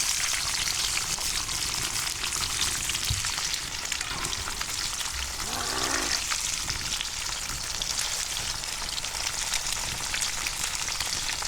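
Eggs frying in pork fat (salo) in a frying pan, a steady dense sizzle and crackle.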